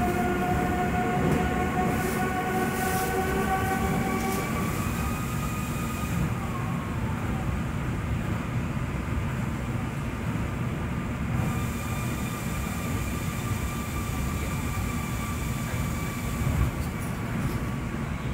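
Osaka Monorail train running along its elevated beam, heard from inside the car: a steady rumble with a whine of several tones from the electric drive, strongest in the first few seconds and coming back fainter from about halfway through. There is one brief bump near the end.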